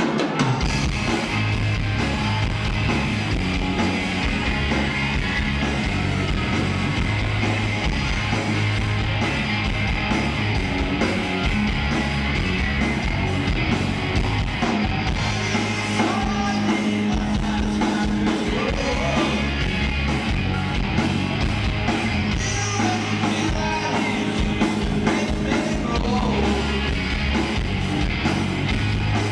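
A live rock band playing loud: electric guitars, bass and drums.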